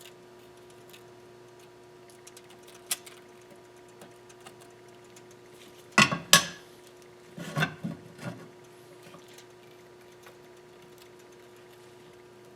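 Metal tools clinking and clacking on a cylinder head as a straightedge and feeler gauges are set and shifted on the deck: one light tick about 3 s in, two sharp clacks around 6 s, then a short run of lighter clinks, over a faint steady hum.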